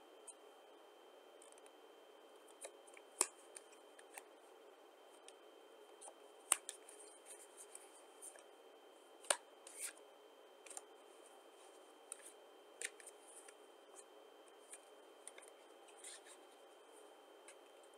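Playing cards handled and laid down one at a time on a pile: quiet rustling of cards in the hand, broken by a handful of sharp card clicks a few seconds apart.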